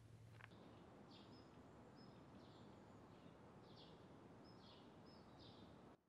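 Near silence: a faint single click just under half a second in, then faint outdoor ambience with soft, short high chirps repeating every half second to a second.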